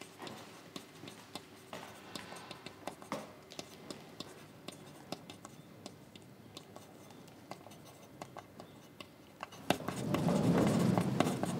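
Hurried writing on paper: quick, irregular scratching strokes, faint at first, turning much louder and denser near the end.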